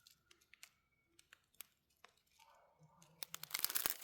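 Small plastic bags of diamond painting drills being handled: a few faint clicks and rustles, then from about three seconds in a louder run of crinkling plastic.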